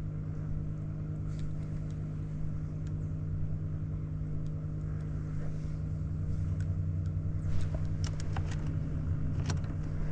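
Boat motor running at a steady low hum. A few sharp clicks come near the end.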